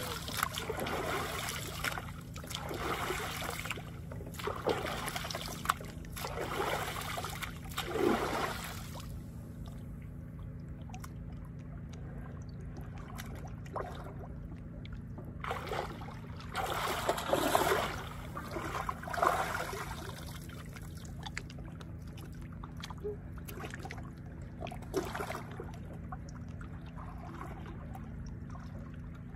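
Water splashing and sloshing in repeated surges, several in the first nine seconds and again around the middle, with a few smaller ones later, over a steady low rumble.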